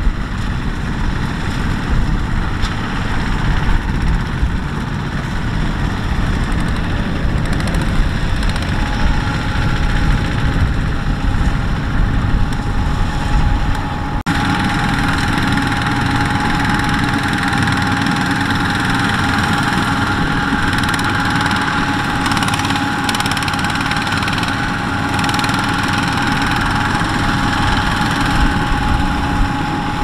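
Rice combine harvester's diesel engine running steadily as the machine drives through the crop. The sound changes abruptly about halfway through, after which a steady high whine from its machinery runs over the engine.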